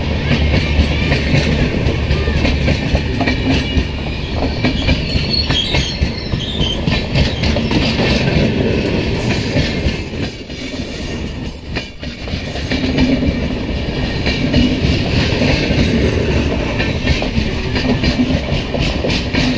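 Passenger express coaches rolling past close by: a steady rumble of wheels with a continuous rhythmic clickety-clack of the wheels over the rails.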